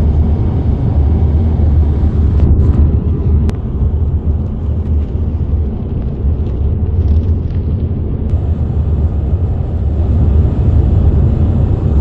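Steady low rumble of road and engine noise inside a car cabin while cruising at highway speed.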